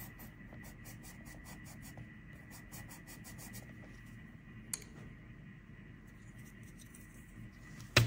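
Coloured pencil scratching on paper in rapid back-and-forth strokes, several a second, that stop a little under halfway through. A faint click follows, then a sharp knock near the end as the pencils are swapped.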